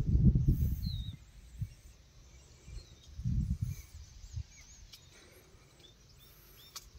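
Quiet outdoor ambience with faint bird chirps, and two low rumbles on the microphone, one at the start and another about three seconds in.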